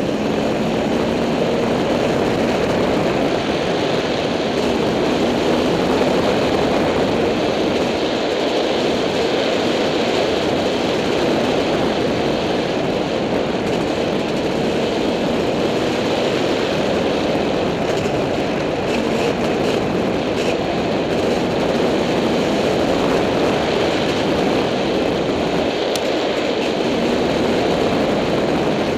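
Dirt bike engine running steadily under way on a dirt singletrack trail, heard from the rider's helmet camera as a loud, even rush without pauses.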